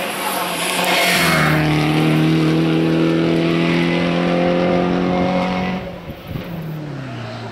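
Peugeot 308 Racing Cup race car's turbocharged four-cylinder engine at high revs as the car passes and pulls away uphill. A rushing sound about a second in gives way to a steady, slightly falling engine note, which drops away about six seconds in. A lower engine note comes in near the end.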